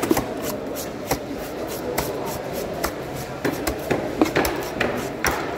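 Cleaver-style knife striking a wooden cutting board in irregular knocks, roughly two a second, as a large fish is cut up, over a steady background murmur.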